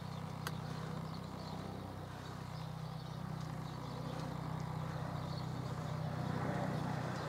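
Eurocopter EC135 T2+ helicopter in flight, a steady low rotor and turbine hum that slowly grows louder as it approaches.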